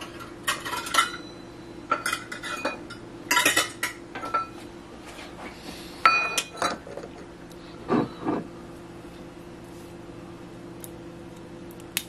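Kitchen utensils and dishes clinking and rattling in several bursts, with one ringing clink about six seconds in and two duller knocks a couple of seconds later, over a steady low hum.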